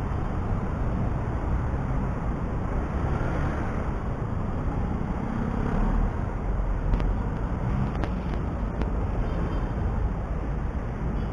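Motorcycle engine and road noise in slow traffic, a steady low rumble, with a few faint clicks about seven to nine seconds in.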